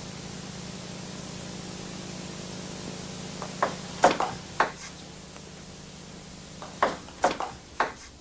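Table tennis ball clicking back and forth between bats and table in a rally. A quick run of sharp clicks comes about three and a half seconds in and another about a second later, over a steady hiss.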